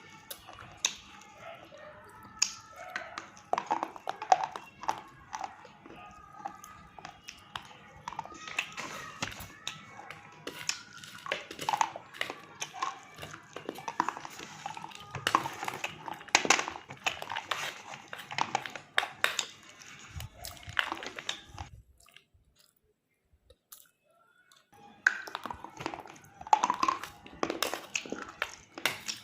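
Close-miked biting and chewing of a hard, chalky mineral, with dense sharp crunches. The crunching stops for about three seconds near the end, then starts again.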